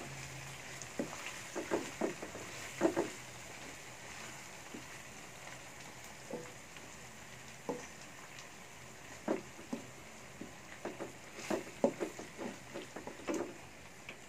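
Wooden spatula scraping and knocking against a wok as a spice paste is stirred, over a faint steady sizzle of the paste frying in oil. The knocks come in clusters, a few in the first three seconds and a busier run in the second half.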